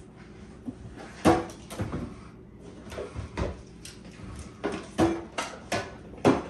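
Rummaging in a low kitchen cabinet: a string of sharp knocks and clatters as things are moved about and the cabinet is handled. The loudest comes about a second in, and a couple of the knocks ring briefly.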